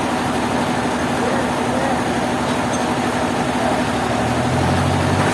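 Sawmill machinery running steadily with a constant hum, a deeper drone joining about four seconds in.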